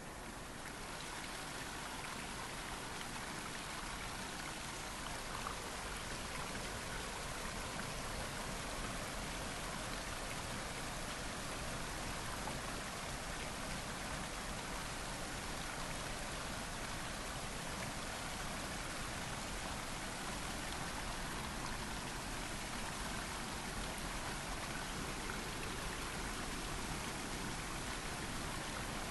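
Water making a steady, even hiss, unbroken throughout.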